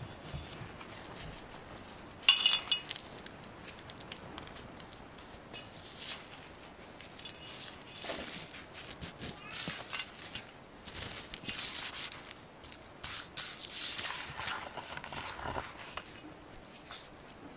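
Fingers rubbing and crumbling a dry crust mixture of crushed biscuits, flour and sugar against a metal pan: a soft, gritty rustling and scraping that comes and goes, busiest in the second half. About two seconds in there is one brief, sharp high squeak.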